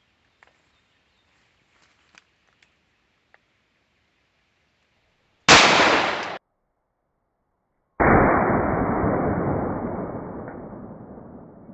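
A single shot from a .45 ACP 1911 pistol about five and a half seconds in, cut off abruptly under a second later. About two and a half seconds after, the same shot plays again slowed down, deeper and drawn out, fading away over several seconds.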